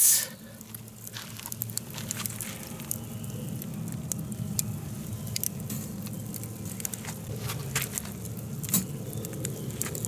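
Scattered crackles and ticks from a bed of wood embers, with sharper clicks as hamaguri clam shells are set down one by one on a metal wire grill net above them. A low steady hum runs underneath.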